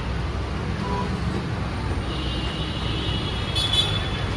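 Steady city road traffic noise, a continuous low rumble of passing vehicles.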